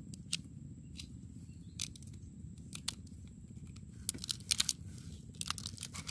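Small knife cutting red chillies against a plastic food container: scattered sharp taps and clicks, with a quick run of cuts about four seconds in, over a steady low rumble.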